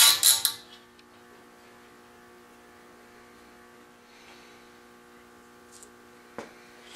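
A brief loud clatter as steel bar clamps are handled, then a steady low electrical hum, with one faint click about six seconds in.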